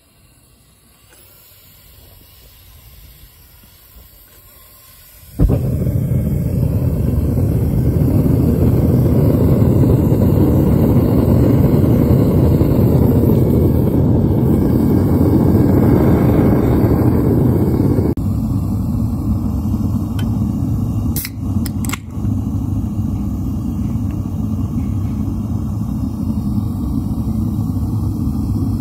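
Propane burner of a Devil Forge furnace coming on suddenly about five seconds in, then running with a loud, steady roar while it melts aluminium cans. About two-thirds of the way through the roar drops a little lower and quieter, and two sharp clicks follow soon after.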